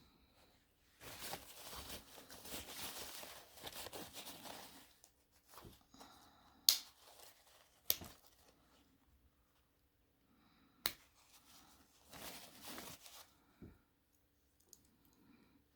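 Several seconds of rustling and wiping, then three sharp clicks of Swiss Army knife tools snapping into place, followed by another short stretch of rustling.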